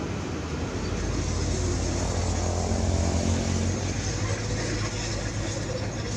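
Heavy construction machine's diesel engine running, getting louder about a second in and easing off again after about four seconds.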